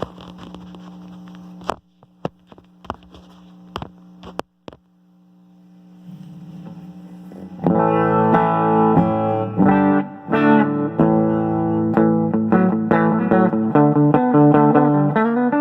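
Firebird electric guitar played through a Crate GT-80 amplifier. For the first few seconds the amp hums steadily, with a handful of sharp clicks. About halfway in, loud distorted guitar playing begins: chords and moving notes.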